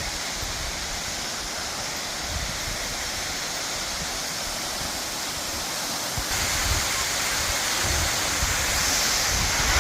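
Waterfall's falling water, a steady rushing noise that becomes louder about six seconds in.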